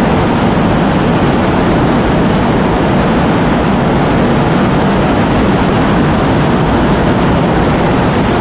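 Rocket Factory Augsburg's Helix oxygen-rich preburner rocket engine firing on a test stand: a loud, steady roar with no let-up.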